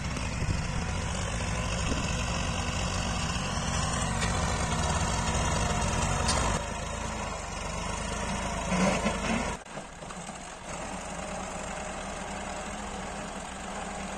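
Diesel farm tractor engine running steadily as it pulls a tine cultivator through soil, with a deep pulsing throb. The low throb falls away suddenly about two-thirds of the way through.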